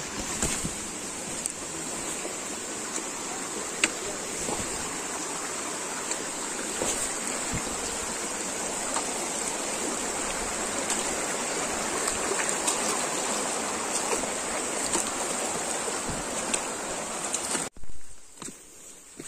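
Steady rush of flowing stream water, with a constant high-pitched hiss above it. It cuts off suddenly near the end.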